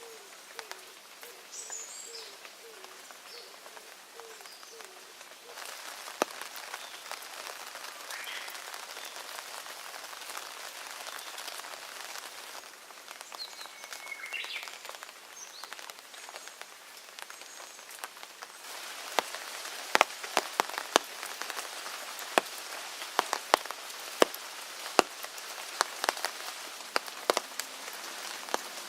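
Steady rain falling, with a few birds chirping now and then in the first half. In the last third, large raindrops hit close by in sharp, irregular taps over the hiss.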